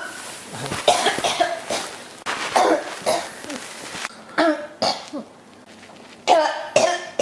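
A person coughing repeatedly in a fit that won't stop: harsh, voiced coughs coming in bursts of several at a time, with short gaps between the bursts.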